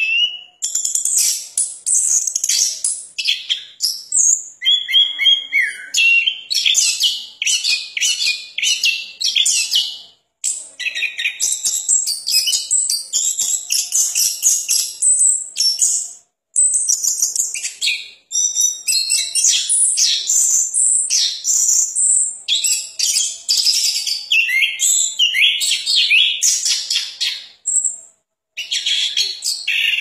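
Caged chestnut-capped thrush (anis kembang) singing a long, fast, varied song of high chirps and whistled notes. There are short breaks about ten, sixteen and twenty-eight seconds in.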